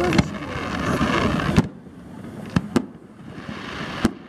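Aerial fireworks shells bursting: about six sharp bangs spread across a few seconds, the loudest about a second and a half in. A steady rushing noise lies under the first second and a half.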